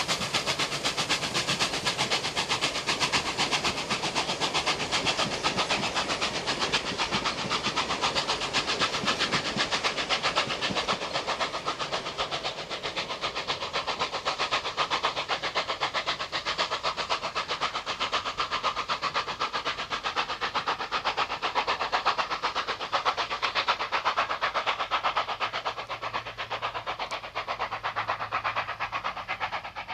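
Steam locomotive 3801, a streamlined 4-6-2 Pacific, working a passenger train past: fast, steady exhaust beats over hissing steam, with the carriages clattering along the rails. The sound eases a little near the end as the train draws away.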